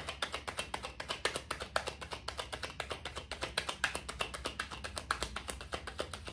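Tarot deck being overhand-shuffled by hand, a rapid, even run of light card clicks and slaps, several a second, that thins out near the end.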